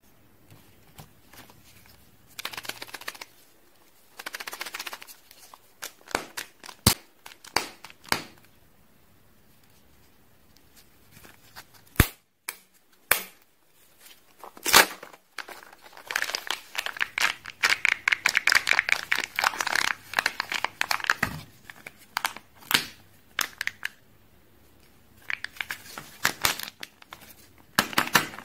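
Kinder Joy eggs being unwrapped by hand: their crinkly plastic wrapper being torn and peeled off in irregular bursts, with a few sharp clicks from the plastic egg shell midway.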